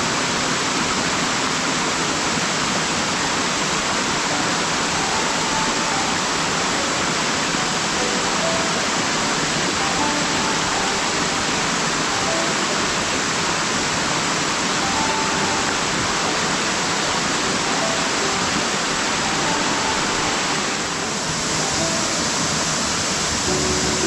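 Steady rushing of a waterfall, with faint background music under it; the water sound shifts slightly about three seconds before the end.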